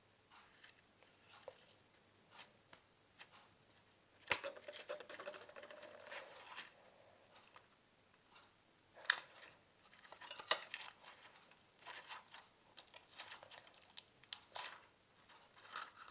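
Stiff, rock-hard homemade slime being pulled and torn apart in the hands, giving irregular sticky crackles, tears and snaps.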